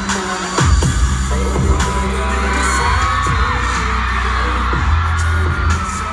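Live pop ballad: a male vocalist sings into a microphone over a backing track with a deep, sustained bass, heard from among the audience.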